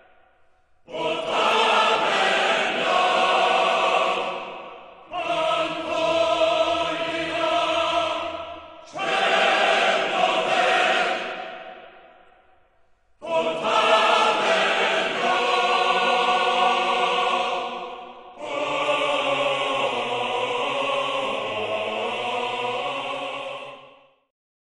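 Choral music: a choir holding sustained chords in five long phrases with short gaps between them, the last phrase cutting off shortly before the end.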